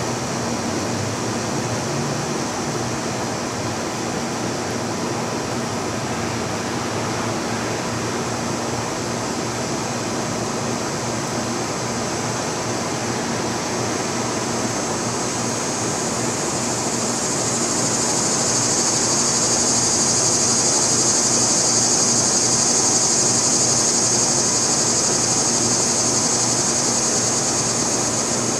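Oscillating lawn sprinkler spraying water, a steady hiss over a low steady hum. A higher hiss swells louder a little past halfway and eases slightly near the end.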